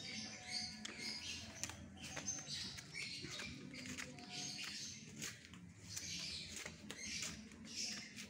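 Faint, irregular high-pitched chirping and squeaking, with scattered light clicks.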